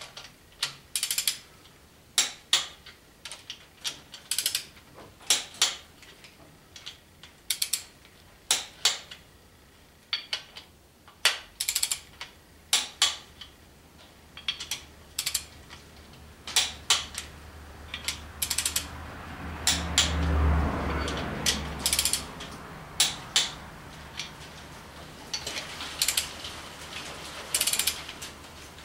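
Ratchet of a torque wrench clicking in short bursts as the main bearing cap bolts of a Chevy 350 are run down and tightened, the first torque pass at 30 ft-lb. A low hum swells up and fades about two-thirds of the way through.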